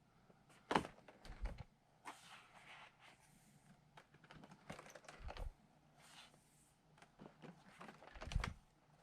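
Paper calendar being handled and its pages turned: soft rustling and swishes of paper with scattered clicks, and a few soft thumps, about a second in, near the middle and near the end.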